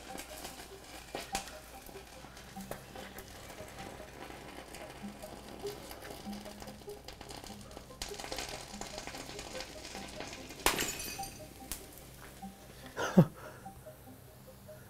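Sodium metal reacting and burning in hot hydrogen peroxide in a glass bowl: a steady fizzing crackle with scattered ticks. A sharp crack comes about ten and a half seconds in, and a louder crack near the end as the overheated glass bowl shatters.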